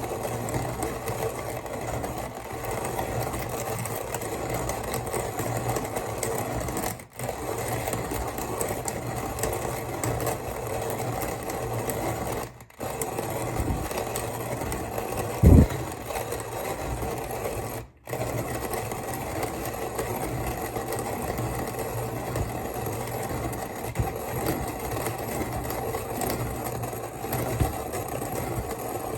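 Kalita hand coffee grinder being cranked, its burrs crunching coffee beans in a continuous fast rattle. The grinding breaks off briefly three times, and a single low thump, the loudest sound, comes about halfway through.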